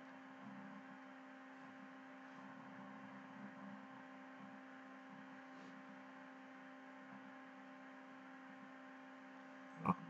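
Faint steady electrical hum, several steady tones over a light hiss: the recording's background noise while nothing else sounds.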